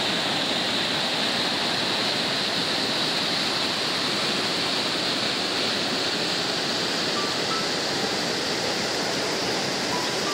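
Stream water rushing over a rock ledge at the top of a waterfall: a steady, even rush.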